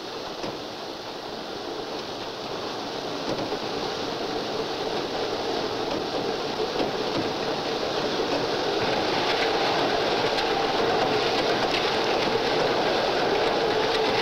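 Mechanical track-ballast cleaning machine running: a steady rushing noise of machinery and ballast stones on the move, growing gradually louder.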